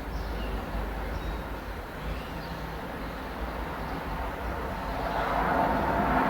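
Outdoor ambience: a steady low rumble and hiss that swells near the end, with a few faint bird chirps.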